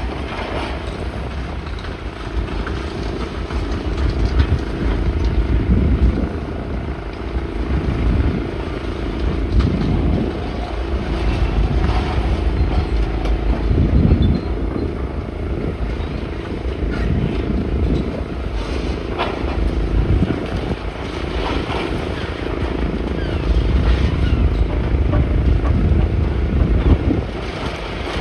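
Heavy demolition machinery running with a steady engine drone and low rumble, with occasional knocks, as wind buffets the microphone.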